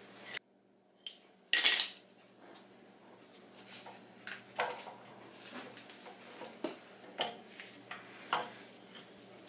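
Metal engine parts clinking and clanking as the camshaft and its holders are handled and lifted out of a Honda 2.4 engine's cylinder head. One loud clank comes about one and a half seconds in, then scattered lighter clinks.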